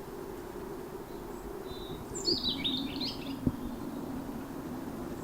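Small bird chirping: a quick run of short, high calls about two seconds in, over a steady low hum. A single sharp click comes a moment after the calls.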